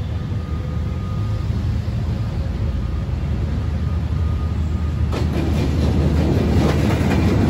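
D19E diesel-electric locomotive approaching with a steady low engine drone; about five seconds in, the clatter of wheels on the rails sets in suddenly and grows louder as the train comes past.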